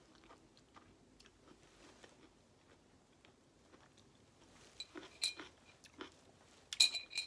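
Close-miked chewing of garlic-stuffed olives: soft, wet mouth clicks and faint crunches, a little louder about five seconds in. Near the end a metal fork clinks against the glass olive jar, with a short ring.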